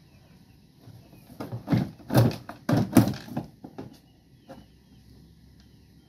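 A quick run of sharp knocks and clatters from parts being handled inside the plastic base of a twin-tub washing machine, packed into about two seconds starting a second and a half in, with one softer knock a little later.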